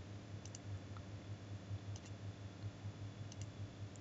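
Computer mouse clicking: three quick pairs of clicks, about half a second, two seconds and three and a third seconds in. A low steady hum runs underneath.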